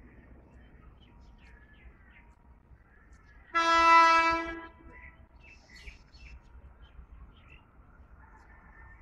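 One blast of a WAP-5 electric locomotive's air horn, about a second long and a little over three seconds in, sounded by the approaching train. Birds chirp faintly around it.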